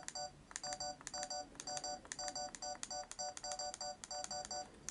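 Sony Cybershot DSC-HX30V camera's operation beep sounding in rapid succession, one short electronic beep for each press of the control wheel, about four a second.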